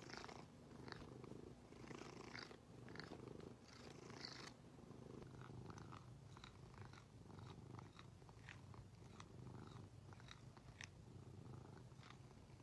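Grey long-haired cat purring softly while being scratched under the chin, with faint scratchy clicks.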